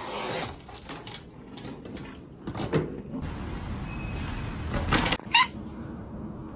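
A run of short scuffling, knocking noises, then a short high cat meow about five seconds in.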